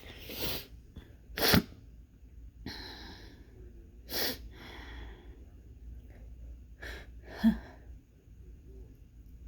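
A congested person sneezing: two sharp, loud sneezes, one about a second and a half in and one near the end, with softer breathy in-breaths and sniffs between them.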